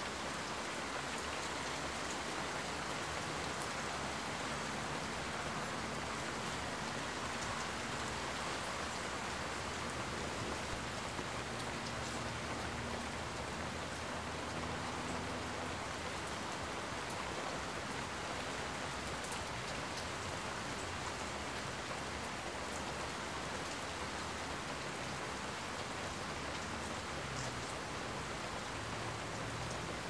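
Steady rain falling on surfaces, an even hiss with scattered small drip ticks and a faint low hum underneath.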